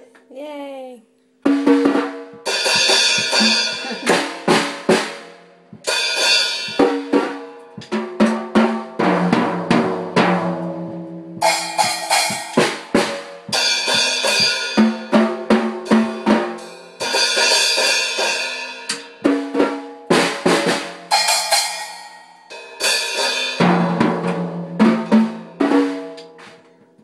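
A child bashing away on a small red drum kit, hitting the drums and cymbals in runs of fast, uneven strokes with short pauses between them, the cymbals ringing over the drum hits.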